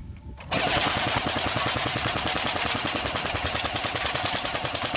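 Barra 400E electric full-auto BB rifle firing one long burst of about four and a half seconds that starts about half a second in: a fast, even rattle of shots from its battery-driven gearbox.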